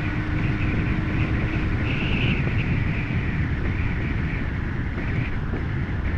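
Steady wind and engine rumble of a moving motorcycle, heard through a helmet camera's microphone, with a faint steady tone over the first couple of seconds.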